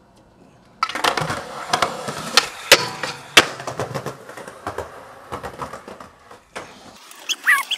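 Skateboard rolling on pavement, starting suddenly about a second in, with a run of sharp clacks and cracks from the board's tail and trucks as the skater pops onto the de-knobbed handrail for a boardslide and lands, then scattered clicks as it rolls on. A short gliding pitched sound comes near the end.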